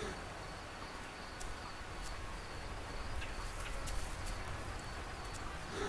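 Faint open-grassland ambience: a steady low rumble with scattered faint clicks, and a short animal call just before the end.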